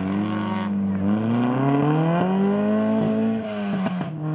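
Rally car's engine pulling hard as the car drives off along the gravel stage. The revs climb over the first couple of seconds, then hold, with a brief dip about three and a half seconds in.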